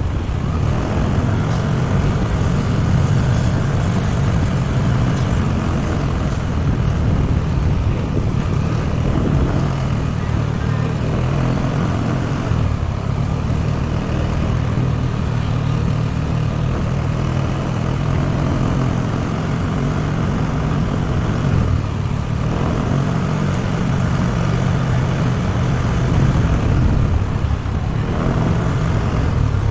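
Motorbike engine running steadily while riding at town speed, with wind and road noise over the low engine hum.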